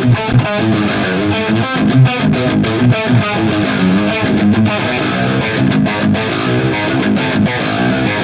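High-gain distorted electric guitar through a Mesa/Boogie Triple Crown TC-50 tube amp, channel 2 on its Tight setting with EL34 power tubes, played on the bridge humbucker. A fast riff of muted chugs and short notes, cut off sharply again and again.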